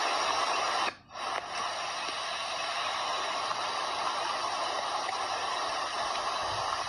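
Flash-flood torrent rushing down a street: a steady, even rushing noise that dips briefly about a second in.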